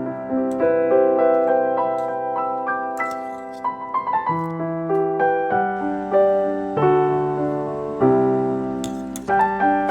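Background piano music playing a gentle melody.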